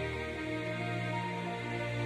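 Background music with slow, held instrumental tones.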